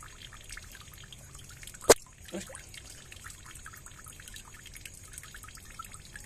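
Shallow water trickling and dripping among the stones of a small ditch, a steady patter of many small drips. One sharp, loud click about two seconds in, followed shortly by a smaller plop.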